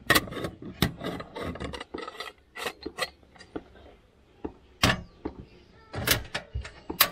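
Stainless steel moka pot being screwed together, metal scraping and clicking against metal, then set down on a Campingaz Bistro 2 portable butane stove. A few sharp clicks near the end as the stove's ignition knob is turned to light it.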